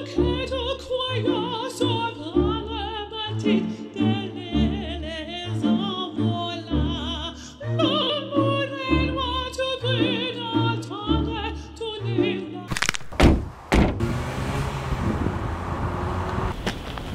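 Operatic singing with wide vibrato over repeating bass notes, a music soundtrack that cuts off abruptly about 13 seconds in. A few sharp thuds follow, then a steady rushing noise.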